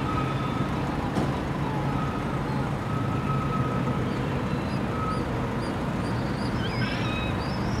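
Steady low rumble of distant city traffic, with faint high chirps from about four seconds in.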